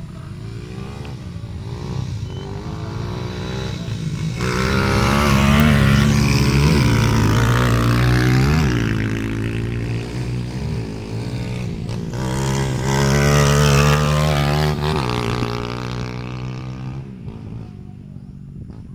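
Dirt motorcycle engine revving hard as it passes on a flat track, its pitch climbing and dropping back several times with the throttle and gear changes. It grows loud about four seconds in and fades away near the end.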